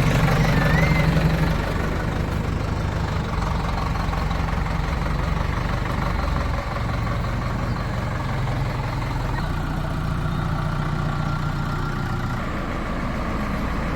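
Heavy diesel engine running steadily, a little louder at first and easing down about a second and a half in.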